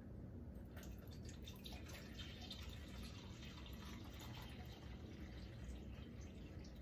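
Cranberry juice being poured, a faint steady trickle of liquid.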